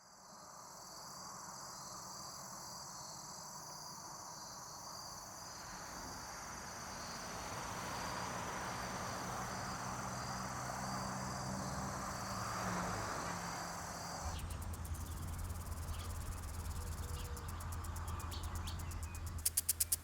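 Insects chirring in a steady, high-pitched drone over a soft background wash. About fourteen seconds in a low hum starts, and fast, even ticking begins just at the end.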